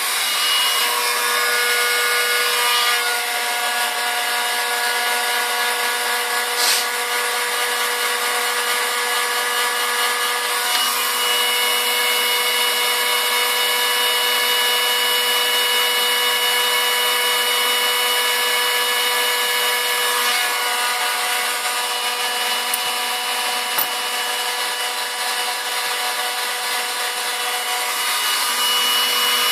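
Electric heat gun running steadily: an even hiss of blown air with a few steady whining tones, which shift in pitch a few times as it is held over the work.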